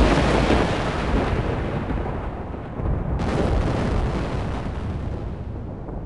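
Rolling thunder: a loud, deep rumble that slowly fades, with a second swell about three seconds in.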